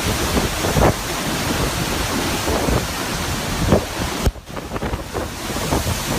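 Hurricane wind gusting and buffeting the microphone in a loud, rushing roar that dips briefly a little over four seconds in.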